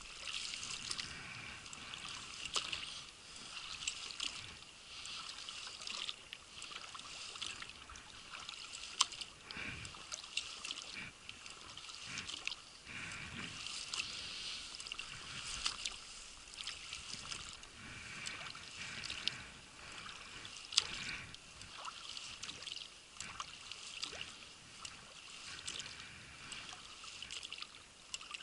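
Inflatable boat being rowed, water splashing and trickling off the oars with small irregular splashes and knocks; no motor.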